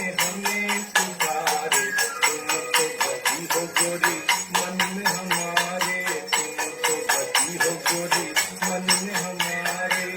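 Instrumental music with a fast, even jingling percussion beat, about five strokes a second, over steady held low notes.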